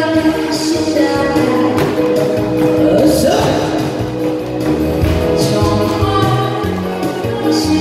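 Korean trot music over loudspeakers: held melody notes over a bass line and a steady beat, with cymbal-like hits now and then.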